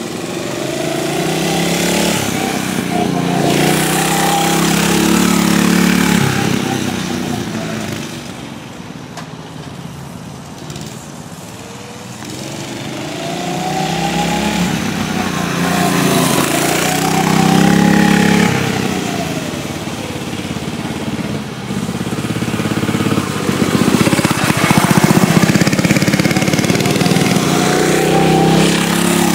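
Mini bike engine running while being ridden, revving up and dropping back again and again, loudest at about five seconds, around seventeen seconds and near the end.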